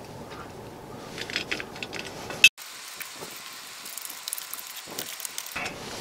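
Small clicks and scrapes of a plastic doorbell mounting bracket being handled and screwed onto a stone wall, with one sharp click about two and a half seconds in, over a low steady hiss.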